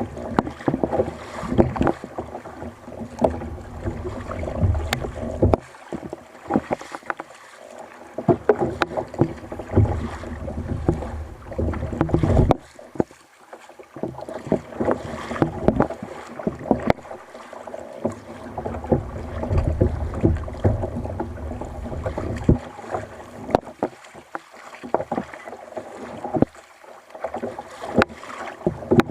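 Water sloshing and splashing around a fishing kayak's hull at sea, coming and going in uneven surges every few seconds, with scattered knocks and clicks throughout.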